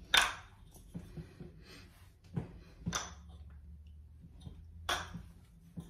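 Wooden kendama clacking as a lunar trick is tried: one sharp knock of the tama against the wooden ken just after the start, then four quieter knocks spread through the rest.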